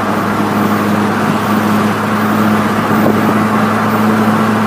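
1998 Mitsubishi Eclipse GS's 2.0-litre four-cylinder engine, fitted with a cold air intake and a stainless header-back exhaust, droning steadily under way along with road noise.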